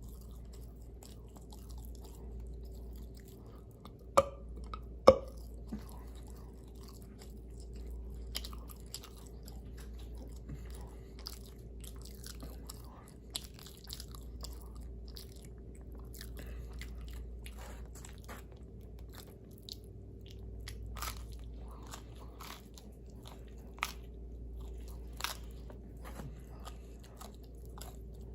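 Close-miked chewing and crunching of pizza, with many scattered sharp mouth clicks and two loud crunches, one about four seconds in and one about five seconds in. A faint steady hum runs underneath.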